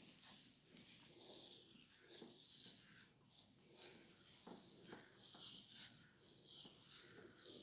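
Faint, irregular rustling and scratching of fingertips rubbing through hair and over the scalp during a head massage.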